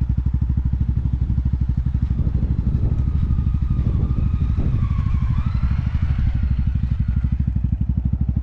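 Motorcycle engine idling close by with a steady, fast, even beat. In the middle a second motorcycle comes down the dirt slope, its engine note wavering up and down.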